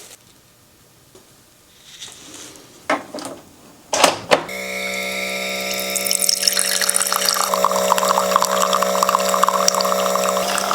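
Keurig coffee maker brewing: a few clicks, then about four and a half seconds in its pump starts a steady hum, and a second or so later coffee begins streaming and splashing into the mug.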